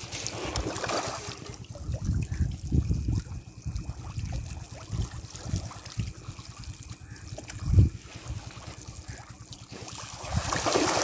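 Fish splashing and thrashing at the surface of a pond, a wet hissing splash loudest near the start and again near the end. Wind buffets the microphone throughout with a low rumble, with one strong gust about eight seconds in.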